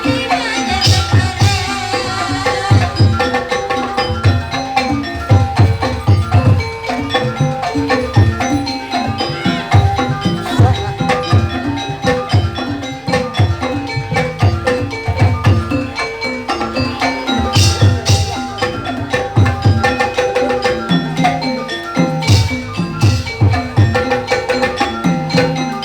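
Javanese gamelan music accompanying a kuda lumping dance: dense kendang hand-drum strokes under a repeating melody of ringing bronze metallophones.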